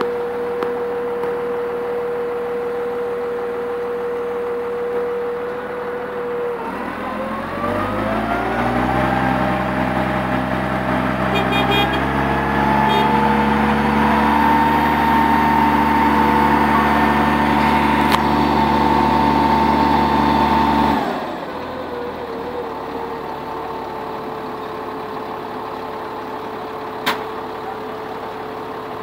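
Diesel engine of a PLS 820 20-ton hydraulic mobile crane running steadily at idle, then revving up about a quarter of the way in and holding a higher speed for about twelve seconds to drive the hydraulics as the load is lifted and swung, before dropping back to idle. A single sharp click near the end.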